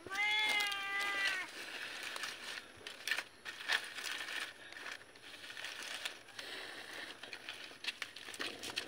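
A cat meows once, a drawn-out call of about a second and a half. After it come scattered small crackles and clicks.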